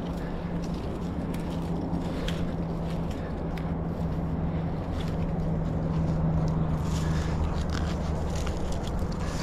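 Scraping and crackling as a climber's hands, arms and feet shift on rough tree bark and brush against twigs and leaves, with scattered short clicks. A steady low hum runs underneath.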